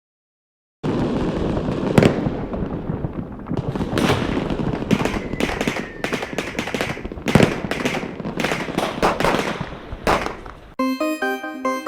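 Umarex Silver Blizzard pyrotechnic effect for a blank-firing pistol going off in dense crackling with many sharp pops. It starts abruptly about a second in and cuts off near the end.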